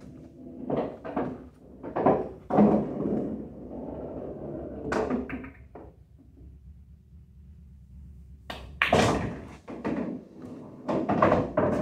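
Irregular knocks and clacks of play at a pool table: the cue tip striking the cue ball and the ball knocking off the cushions. The loudest, sharpest knock comes about three quarters of the way through.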